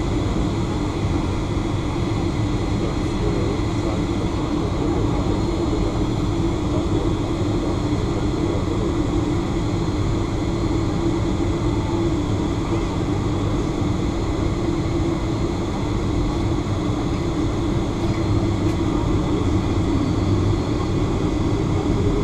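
Steady cabin noise inside a Boeing 757-300 with its jet engines at idle while taxiing: a constant hum and low rumble with a few faint, thin high tones above it.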